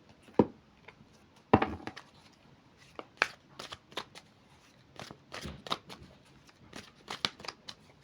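Tarot cards being shuffled and handled: a string of short, crisp flicks and snaps, with two louder ones in the first two seconds.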